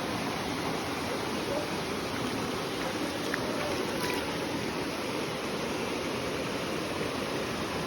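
Steady rush of flowing water, an even hiss that does not let up.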